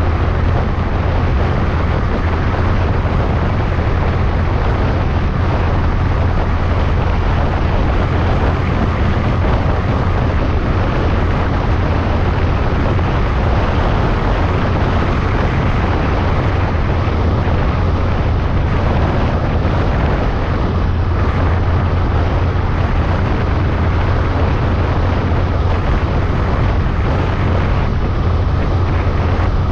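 Steady rush of wind and road noise from a Honda Monkey minibike travelling at speed, with a constant low drone underneath.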